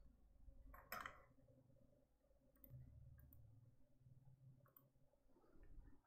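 Near silence: room tone with a few faint clicks, the clearest about a second in.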